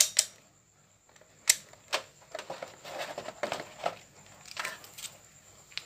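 Sharp plastic clicks and knocks, then a run of light clattering, as an analog multimeter and its test leads are handled and moved about.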